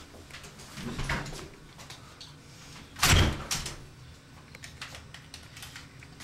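Hotel room door being handled, with a soft knock about a second in and a loud bang about three seconds in.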